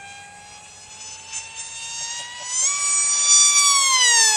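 Electric motor and propeller of a FunJet-style RC model jet whining through a high-speed pass: the pitch creeps up, jumps as the throttle opens, and the sound swells and then drops in pitch near the end as the plane flies past.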